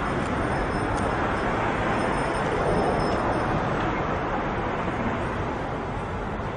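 Steady rushing road-traffic noise that swells a little about halfway through, then slowly eases off.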